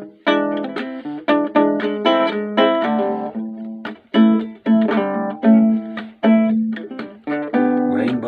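Small acoustic guitar fingerpicked in an instrumental passage: a melody of single plucked notes, two or three a second, each ringing and dying away over a repeating low bass note.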